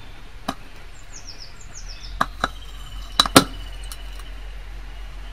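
Sharp little pops and cracks of NaK (liquid sodium–potassium alloy) drops reacting violently with water in a glass beaker, the drops bursting and jumping out of the water. One pop about half a second in, then a quick cluster of several between about two and four seconds in, the loudest near the middle.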